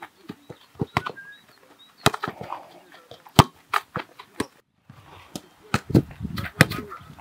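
Footballs being kicked back and forth in passing drills: sharp, short thuds of boots striking the ball, irregular and sometimes several in a second.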